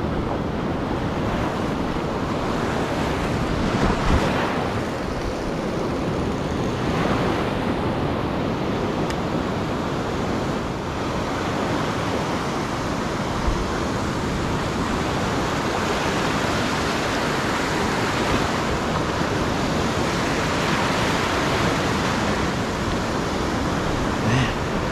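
Sea surf washing on the shore, a steady rushing that swells and eases with the waves, with wind buffeting the microphone.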